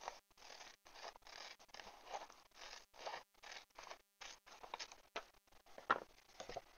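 Scissors cutting through printed paper: a quick run of short snips, about three a second, with one louder stroke near the end.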